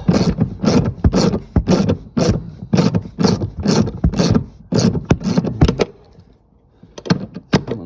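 Socket ratchet being worked back and forth on a seat-mounting bolt, making a short rasping ratchet sound on each stroke, about three a second. It pauses about six seconds in and then starts again. The bolt is being loosened.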